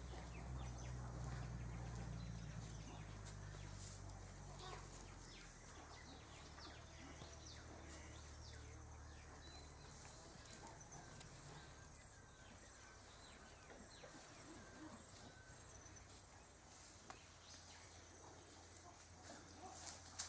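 Quiet bush ambience: scattered faint chirps and small rustles, with a low hum that fades away over the first five seconds.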